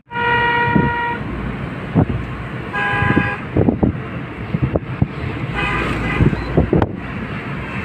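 Car horn honking three times: a steady honk of about a second at the start, a shorter one about three seconds in, and a fainter one near the end. Underneath runs the steady rumble of a car driving on a mountain road, with a few dull knocks.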